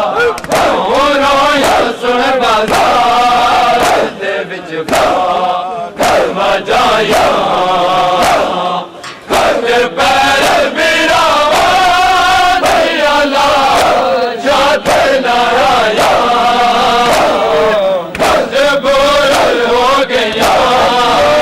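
A crowd of men chanting together in melodic phrases, with short breaks between the phrases.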